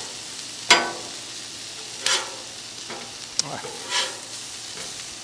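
Consommé-dipped tortillas frying on a Blackstone steel griddle, a steady sizzle. Four sharp metal clacks of a spatula on the griddle cut through it, the loudest about a second in.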